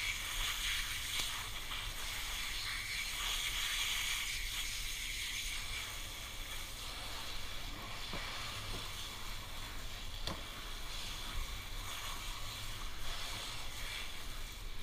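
Water spraying from a garden hose nozzle in a steady hiss as a gutted mangrove snapper's belly cavity is rinsed out, with a few faint knocks around the middle.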